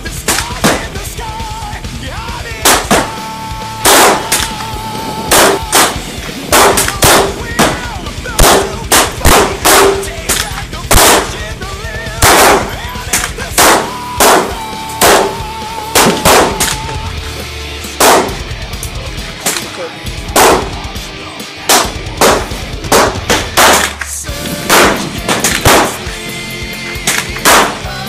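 Pistol gunshots fired in quick strings, dozens of sharp cracks over the stretch, with rock music playing underneath.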